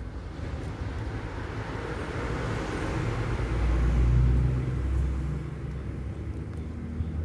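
Low engine rumble of a passing road vehicle, swelling to its loudest about four seconds in and then easing off.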